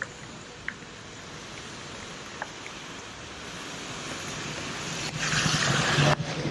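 Steady hiss of tyres on a wet street, with a few small clicks. About five seconds in, a city bus passes close by: a rising rush of its tyres on the wet road over a low engine hum.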